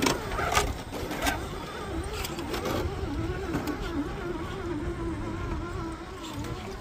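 Redcat Ascent RC crawler's electric drive whining, its pitch wavering up and down with the throttle as the truck crawls over rock. A few sharp knocks and clicks of the tyres and chassis on rock fall in the first couple of seconds.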